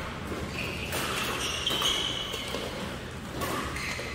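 Badminton rally: rackets hitting the shuttlecock with short, sharp strikes about a second or more apart, and court shoes squeaking briefly on the floor.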